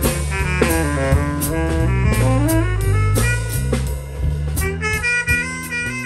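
Jazz saxophone playing a melodic line with quick falling and rising runs over a drum kit, with cymbal strokes keeping time. Low bass notes sound underneath.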